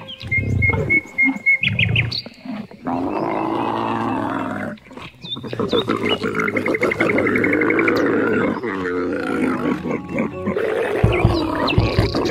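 Edited mix of animal calls: long, rough low calls with runs of rapid, short high chirps layered over them, and a brief break about five seconds in.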